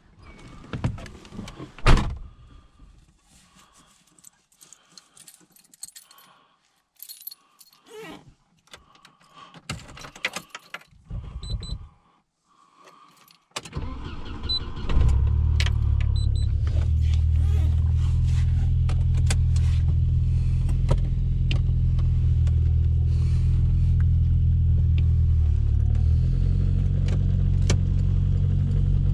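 A car door shutting with a loud thunk about two seconds in, then keys jangling and small clicks and rustles. About halfway, the Volvo 240's 2.3-litre B230FK turbocharged four-cylinder engine cranks, starts and settles into a steady idle, which drops a little near the end.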